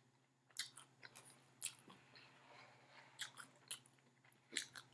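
A person chewing a soft glazed donut, with faint, irregular mouth clicks and smacks.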